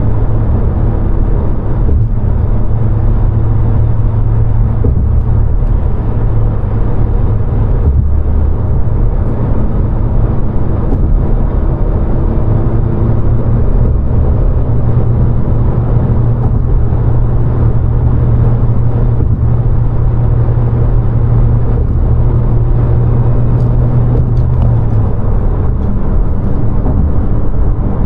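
2020 Honda Civic Si's turbocharged four-cylinder running steadily while the car drives, with road noise; the engine note changes near the end.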